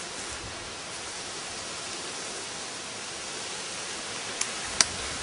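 A steady, even hiss of outdoor background noise, with two short clicks about half a second apart near the end.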